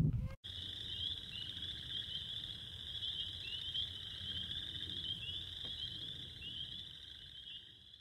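Evening chorus of frogs: a dense, steady mass of high, rising peeping calls, fading away near the end.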